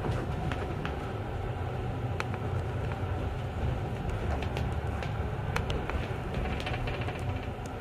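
Metre-gauge electric train of the Wynental- und Suhrentalbahn rolling into a station, heard from the driver's cab: a steady low rumble with scattered sharp clicks.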